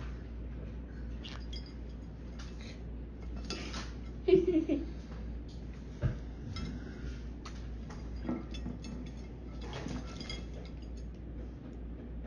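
A green-cheeked conure's claws and beak tapping and scraping on a ceramic dinner plate as it bathes in shallow water, a scatter of short taps. A brief voice-like sound, the loudest moment, about four seconds in.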